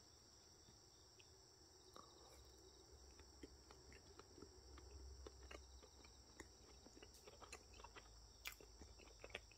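Near silence: a steady faint high hiss with soft, scattered small clicks that come more often in the second half.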